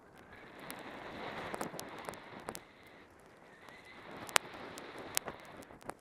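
Snowboard sliding and scraping over snow, a hiss that swells twice, with sharp knocks and clicks scattered through, the loudest knock a little past the middle.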